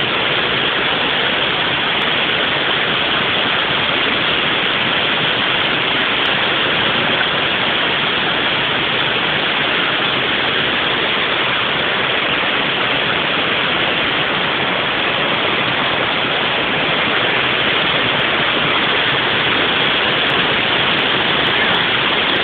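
Waterfall: a steady, loud rush of falling water that does not let up.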